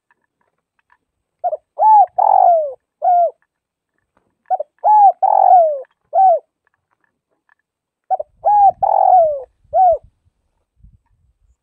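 Spotted dove cooing: three phrases a few seconds apart, each a quick run of four or five coos with one longer, falling coo near the middle.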